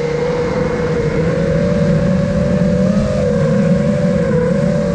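Brushless motors and propellers of an iFlight Nazgul Evoque F5 five-inch FPV quadcopter whining at a fairly steady cruising throttle, the pitch wavering slightly, heard from the camera mounted on the drone.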